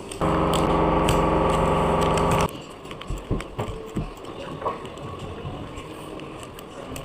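A steady electric buzz at one constant pitch for about two seconds, cutting off suddenly, followed by soft paper handling with light taps and rustles.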